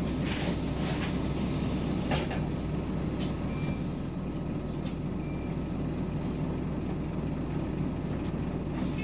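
Scania Omnicity bus running, its engine a steady low drone, with a few short hisses and two brief high beeps.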